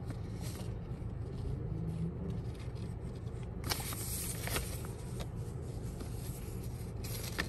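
Steady low hum inside a car, with a few brief rustles of a paper parking ticket being handled about halfway through.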